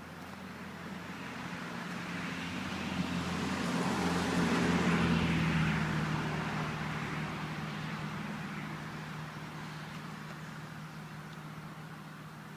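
A car driving past, its sound swelling to a peak about five seconds in and then slowly fading away.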